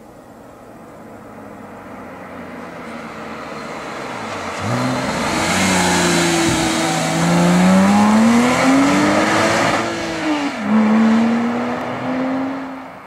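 2008 Porsche Boxster S's flat-six engine accelerating hard: its note climbs, drops back twice and climbs again, growing louder as the car draws near, then fading away near the end.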